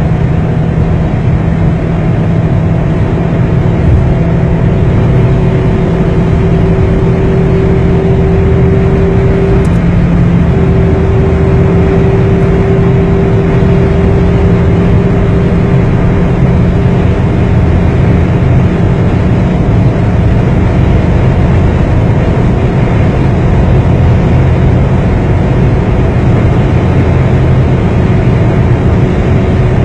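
Ford Mondeo's 2.4-litre engine running hard at about 5,000–5,500 rpm near top speed, heard from inside the cabin. The engine note holds steady and creeps up slowly as the car gains speed past 200 km/h, under loud wind and road noise.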